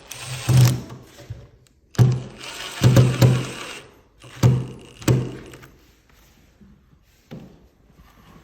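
Power drill/driver running in several short bursts, driving screws for a door handle's set plate into the door. After about six seconds only a few faint taps remain.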